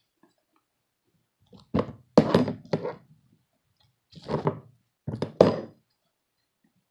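Slime being worked by hand: dull thunks and knocks in four short clusters over about four seconds.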